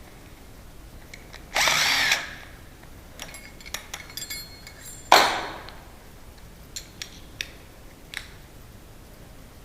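Power drill run in one short burst about a second and a half in, as the new strike plate is fitted. About five seconds in comes a loud sudden knock with a short ringing tail, followed by a few light clicks of metal parts being handled.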